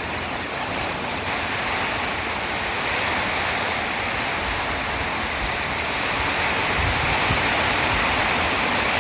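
Heavy rain pouring down in a steady, dense hiss that grows slightly louder.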